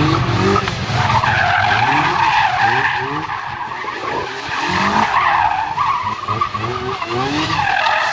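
Lindsay Special's engine revving hard in short bursts, the revs climbing and dropping again and again as the car is driven through a tight cone course, with tyres squealing on concrete.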